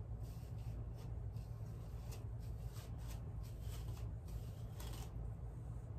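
A plastic comb raking through a long section of hair in quick, irregular short strokes, a dry scratchy rasp with each pass, over a steady low hum.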